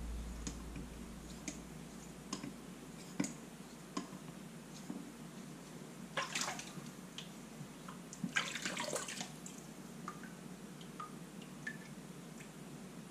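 A straight razor drawn in light honing strokes across the wet 6000-grit side of a combination waterstone, polishing and refining the edge: faint wet swishes and small scrapes, with two longer, louder strokes about six and eight and a half seconds in.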